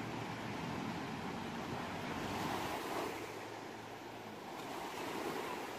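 Ocean surf washing on a shore, a steady rush of breaking waves that swells and eases as each wave comes in and draws back.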